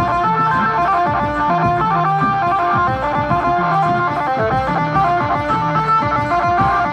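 Adivasi band baja music: a fast, repeating plucked-string melody of short notes over steady drum beats.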